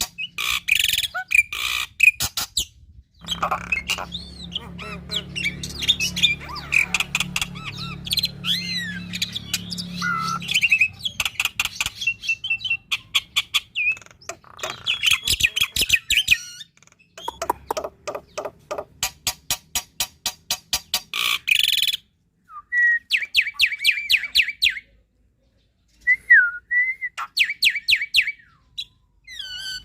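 Black-winged myna (jalak putih) singing a long, varied song: runs of rapid repeated harsh notes alternate with whistled glides and chatter, with brief pauses between phrases.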